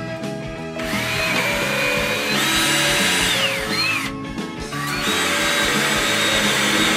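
Ryobi cordless drill driving screws into a wooden batten. Its motor whine rises as it speeds up, runs about three seconds, winds down and stops, then runs again for a couple of seconds. Background music plays underneath.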